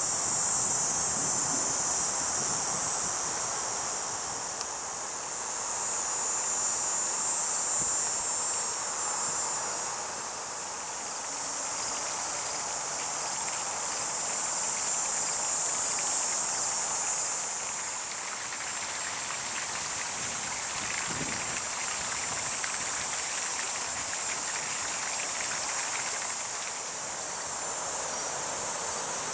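A chorus of insects: a high, steady buzz that swells and fades every several seconds, with a softer steady hiss underneath.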